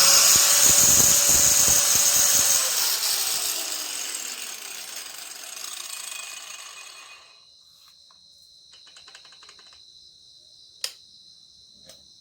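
Aegon AG100PA angle grinder running at full speed with a steady whine, then switched off about two and a half seconds in, its motor winding down in a falling whine that fades out after about seven seconds. A sharp click near the end.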